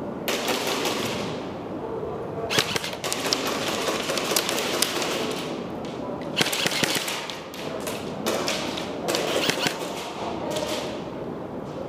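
Airsoft electric gun firing on full auto in several bursts of a second or more each, with short pauses between them.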